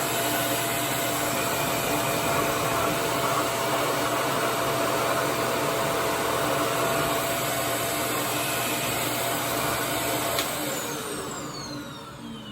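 RevAir reverse-air hair dryer running with a steady rush of suction air and a steady motor hum. About ten seconds in it is switched off with a click, and its motor winds down in a falling whine.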